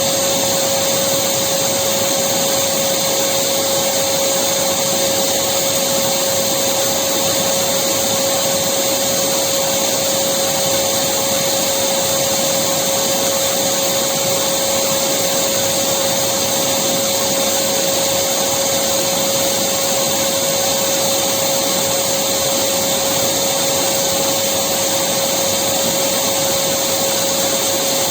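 Electric vacuum cleaner running continuously: a steady rushing whoosh with a constant hum at one pitch, unchanging throughout.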